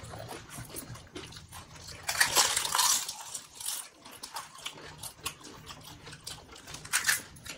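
People eating panipuri: crisp puri shells crunching and spiced water slurped, in a few louder bursts, with small clicks and clinks of plates throughout.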